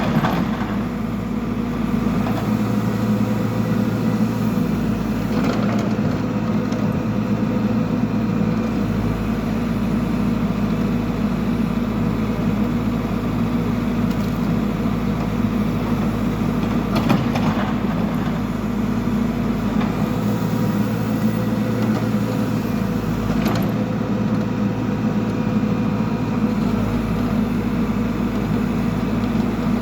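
Backhoe loader's diesel engine running steadily while it digs out a foundation, with a few short knocks from the working equipment.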